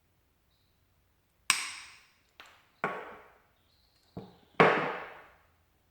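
Hand cutting tool snipping through the cord of a cigarette-lighter adapter: five sharp snaps over about three seconds, each dying away quickly, starting about a second and a half in, the last the loudest.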